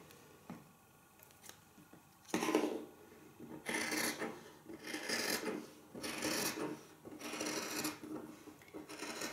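Dressmaking shears cutting through jersey knit fabric: a near-quiet start, then a run of snips roughly two a second from about two seconds in.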